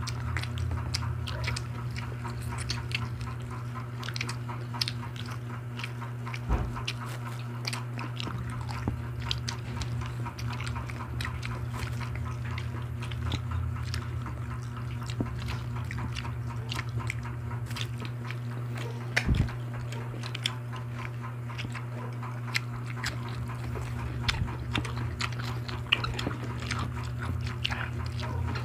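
Close-up mukbang eating sounds: several people chewing and smacking their lips on barbecue skewers and kinilaw, a steady run of small wet clicks over a constant low hum. Two dull knocks, about six seconds in and about nineteen seconds in.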